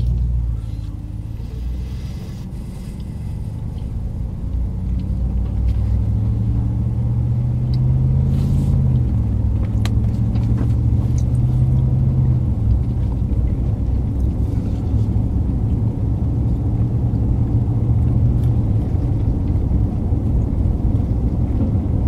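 Ram 1500 pickup truck accelerating, heard from inside the cab: engine and road noise. The engine pitch climbs, drops about nine seconds in as the transmission shifts, climbs again, then settles into a steady cruise.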